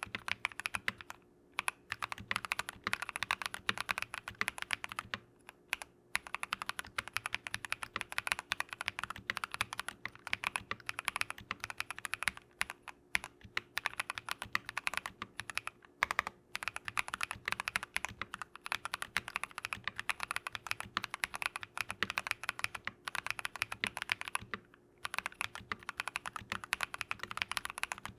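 Fast, steady typing on a mechanical keyboard fitted with Drop + Invyr Holy Panda tactile switches: dense rapid keystrokes broken by a few brief pauses.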